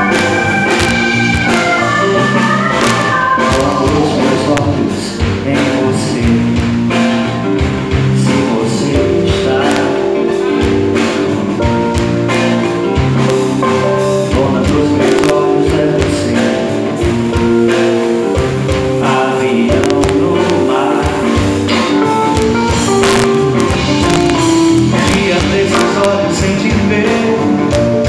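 Live band playing amplified through a PA: acoustic-electric guitar, electric bass, drum kit and a Yamaha MOXF keyboard, with a man singing. It opens with a run of high notes stepping downward.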